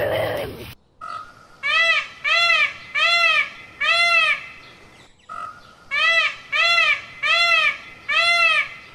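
Indian peafowl (peacock) calling in two runs of four loud honking calls, each rising then falling in pitch, about one every 0.7 s, with a short pause between the runs. Before the calls, an animal growl cuts off just under a second in.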